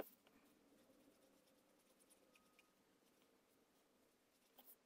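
Very faint strokes of a Stampin' Blends alcohol marker's brush tip on cardstock, with a few soft clicks: one at the start and a couple near the end.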